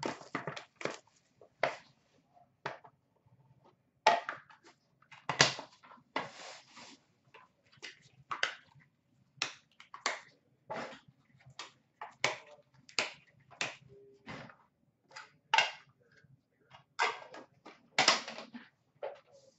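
Crackling and rustling of plastic wrapping and cardboard as a sealed trading-card box is opened and its contents handled, in a string of short sharp crackles and taps with brief pauses between them.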